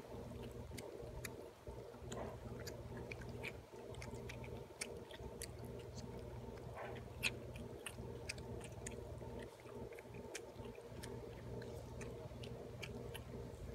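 Malayan flying fox chewing a piece of watermelon, pressing out the juice: faint, irregular wet clicks and smacks over a steady low hum.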